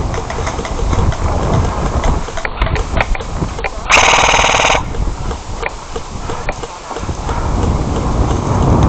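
Airsoft gun firing a short full-auto burst of rapid shots about four seconds in, lasting under a second. Around it there is a steady low rumble and scattered sharp clicks.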